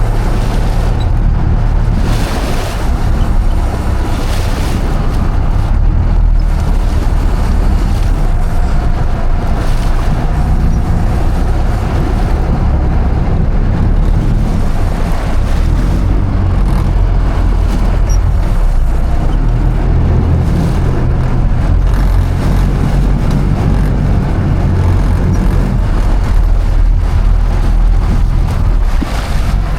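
Boat engine running steadily under way, with wind buffeting the microphone and water rushing past the hull.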